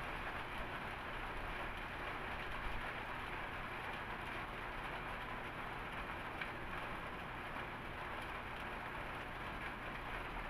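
Steady, even background hiss, with a faint crinkle of a plastic snack wrapper being handled about six seconds in.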